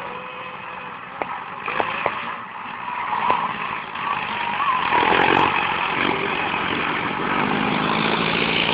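Diesel tractor engines running, growing louder about halfway through and staying loud, with a few sharp clicks in the first few seconds.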